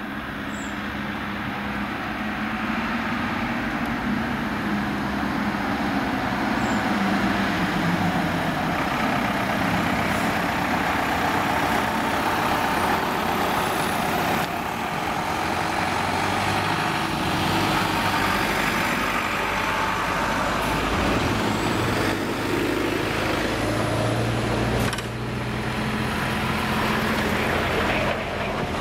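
A convoy of ambulances and emergency trucks driving past one after another, with steady engine and tyre noise. The noise grows louder over the first few seconds as the vehicles come close.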